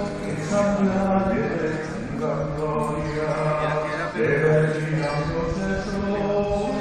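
Voices singing a slow chant in long held notes.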